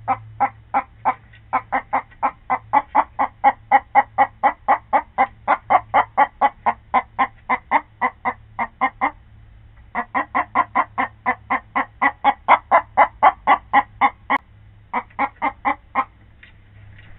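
Hen clucking in a fast, even run of about four clucks a second, pausing briefly about nine seconds in and again about fourteen seconds in, over a faint low steady hum.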